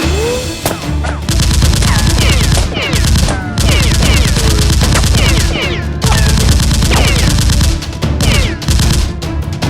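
Rapid, continuous gunfire sound effects, a fusillade of shots with many short falling whines like ricochets, laid over background music.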